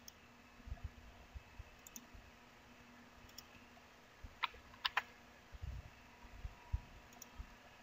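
Faint computer mouse clicks and keyboard key presses, with a quick run of three sharp clicks about four and a half seconds in, among scattered soft low knocks.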